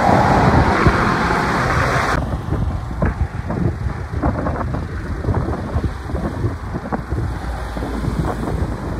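A car passes close by on the road, with tyre and engine noise, cut off abruptly about two seconds in. Then comes a low, unsteady rumble with wind buffeting the microphone.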